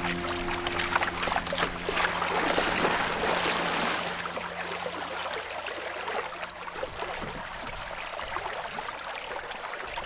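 Lake water splashing and rushing between the hulls of two canoes lashed together under sail, where their wakes collide. The wash is strongest at first and eases after about four seconds.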